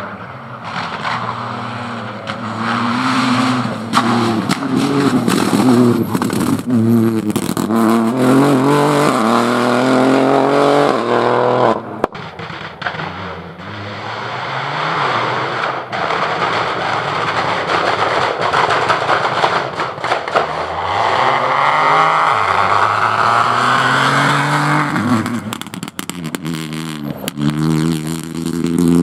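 Several Peugeot 208 Rally4 rally cars, with turbocharged 1.2-litre three-cylinder engines, accelerating hard past one after another. The engine pitch climbs and drops with each gear change, and short sharp pops come between shifts.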